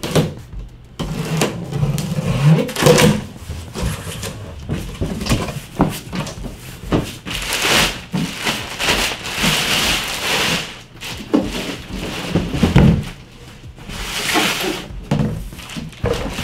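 Unpacking a cooler from its carton: cardboard flaps scraping open, a large plastic bag rustling and crinkling as the plastic-wrapped cooler is lifted out, with irregular knocks and thumps throughout.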